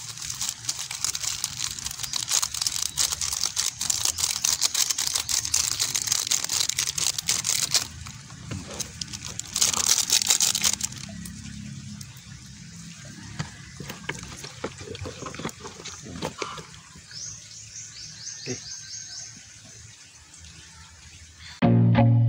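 Liquid poured in a thin stream onto a whole raw chicken in a plastic basin of marinade. The splashing trickle runs for about eight seconds and comes again briefly a couple of seconds later, followed by quieter wet handling sounds. Guitar music starts just before the end.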